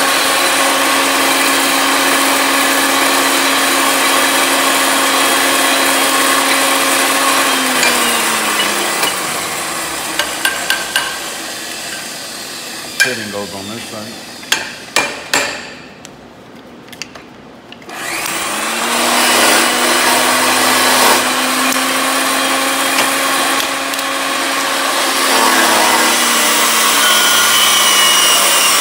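RIDGID power pipe threading machine running with a steady motor hum, then winding down about eight seconds in. Sharp metal knocks follow, then a short quieter spell. The motor spins back up, runs, and winds down again a few seconds before the end.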